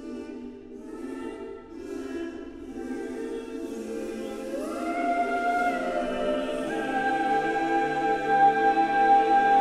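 Unaccompanied mixed choir holding a long, sustained chord that swells steadily. About halfway through, higher voices come in with a short upward slide and hold a bright note over the chord as it grows louder.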